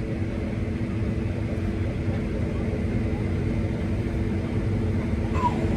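Combine harvester running steadily with a drone of several steady low tones while it unloads grain from its tank.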